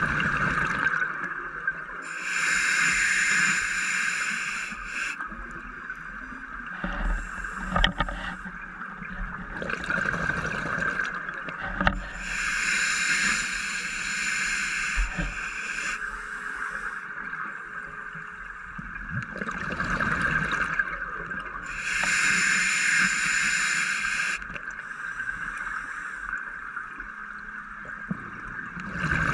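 Scuba diver breathing through a regulator underwater: a softer hiss on each inhalation, then a louder rush of exhaled bubbles, three breaths about ten seconds apart over a steady hiss.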